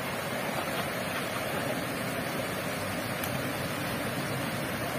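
Steady rushing of stream water flowing down a small cascade and through a shallow creek.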